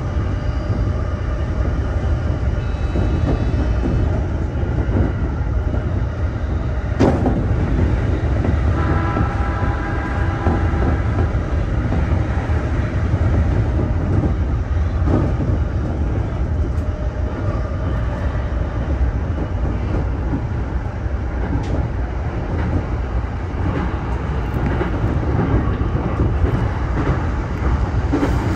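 E231-series electric train running at speed: a steady rumble of wheels on rail. A sharp click comes about seven seconds in, and a brief higher whine about nine seconds in.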